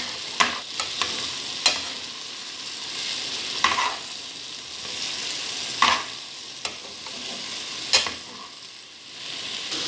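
Sliced mushrooms, onion, garlic and tomato sizzling in oil in a frying pan as they are stirred with metal tongs. The tongs knock and scrape against the pan in sharp clicks every second or two.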